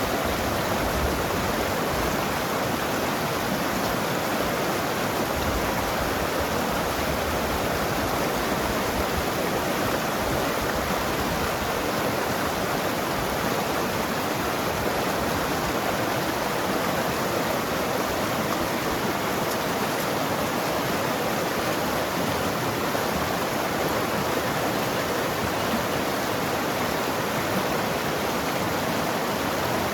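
Mountain river rushing and gurgling over rocks: a steady, unbroken wash of water noise.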